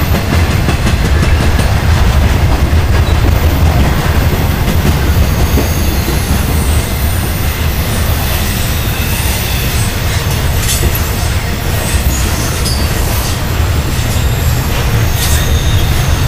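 Intermodal freight train's cars loaded with highway trailers rolling past: a steady, loud rumble of steel wheels on rail, with faint high wheel squeals and a few sharp clicks over rail joints.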